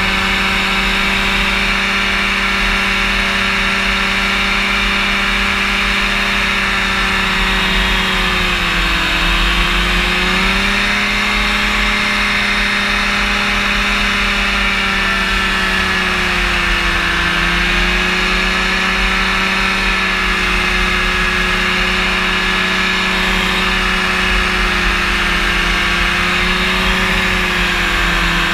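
Rotax engine and pusher propeller of a powered parachute running steadily in flight. The engine speed sags briefly and picks back up three times, about a third of the way in, around the middle, and near the end.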